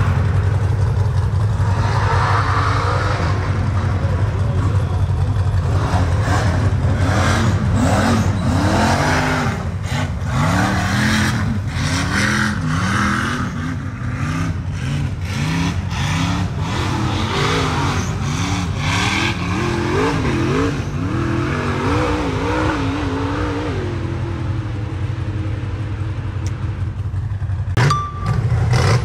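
Off-road race vehicle engines revving, their pitch climbing and dropping again and again over a steady low engine drone.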